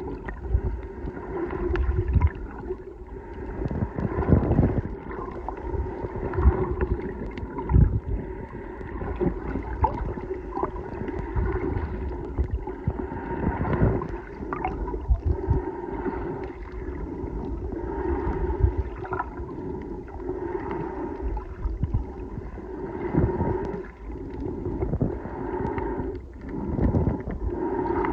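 Muffled underwater sound picked up by a submerged camera: water rushing and knocking against it in irregular low thumps, over a steady low hum.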